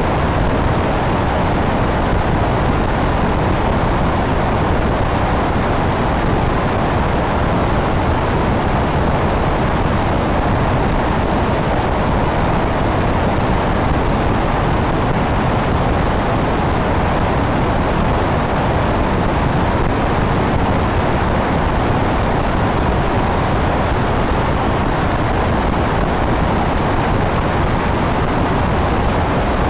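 Steady rush of airflow over a camera mounted on the wing of a small electric airplane in flight: an even, unbroken noise with no motor tone standing out.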